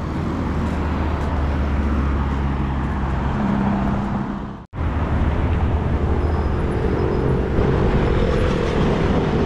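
Steady highway traffic noise, motor vehicles running past with a low engine hum under the tyre noise. The sound cuts out for an instant about halfway through.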